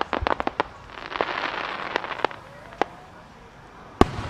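Aerial firework shells bursting: a rapid run of sharp cracks from a cluster of small bursts, then a crackling hiss with a few scattered pops. A single loud bang about four seconds in, the loudest sound here, is followed by a low rumble.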